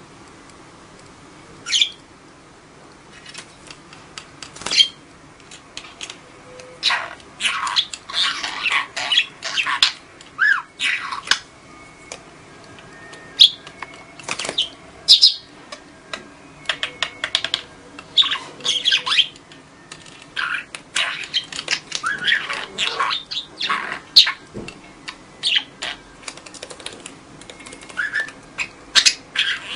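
Pet budgerigar chattering: a long run of short chirps, squawks and warbling notes in irregular bursts, some gliding in pitch.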